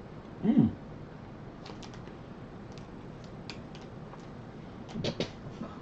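Someone chewing a hard, chewy bonbon: faint, irregular wet clicks and smacks of the mouth working at the sticky sweet, with a short "mmm" near the start and a brief murmur near the end.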